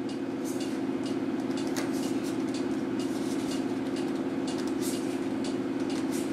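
A steady low hum, with a few light clicks as the Fizz Giz CO2 charger is screwed shut by hand to pierce its 16-gram CO2 cartridge.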